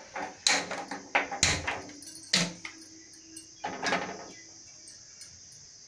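Several sharp metal knocks and clanks at a stainless-steel gas stove, some ringing briefly, as it is handled and its knobs worked.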